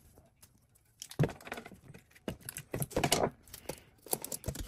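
Aluminium foil crinkling and a cardboard box rustling as hands press foil over the end of the box, in irregular crackly spurts starting about a second in, with a knock at the start.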